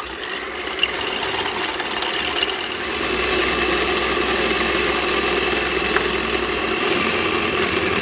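Electric hand mixer running, its twin beaters whipping egg whites in a glass bowl toward stiff peaks for a meringue. The motor starts at once and gets louder about three seconds in.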